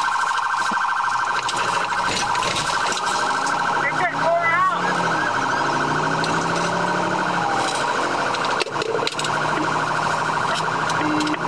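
Police siren sounding continuously in a fast, rapidly pulsing pattern during a pursuit, over the steady hum of the patrol car on the road. A few brief rising and falling chirps come about four seconds in.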